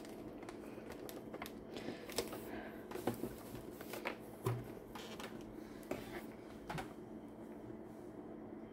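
Handling noise from a doll in its cardboard box: scattered light taps and rustles as hands adjust the doll's hair and clothes, growing quieter near the end.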